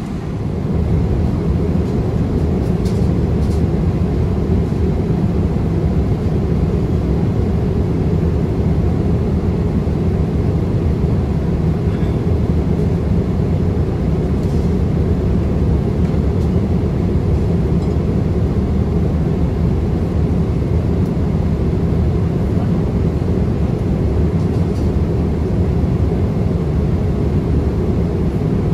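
Steady low cabin noise of a jet airliner cruising at altitude: engine and airflow noise heard from a passenger seat, getting louder about a second in and then holding even.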